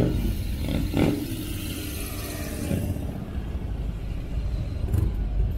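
Car driving along: a steady low rumble of engine and road noise, with a hiss that dies away about three seconds in.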